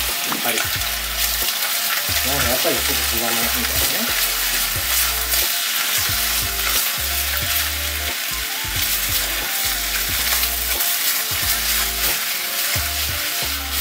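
Chicken thigh pieces and green curry paste sizzling in a cast-iron Staub cocotte, stirred with a utensil that scrapes and knocks against the pot.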